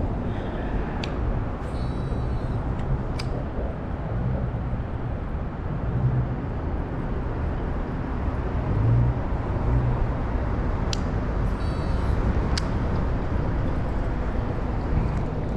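Steady low rumble of road traffic on the bridge overhead, with passing engine hums now and then. A few sharp clicks and two short bursts of faint high chirping sit on top.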